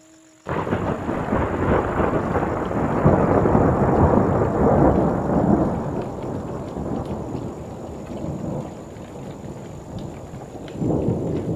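Thunder rumbling: it starts suddenly about half a second in, builds, slowly fades, and swells again into a second rumble near the end.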